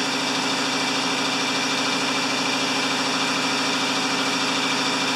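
The larger of two tandem-connected air compressors running steadily, its pump building tank pressure up toward cut-out.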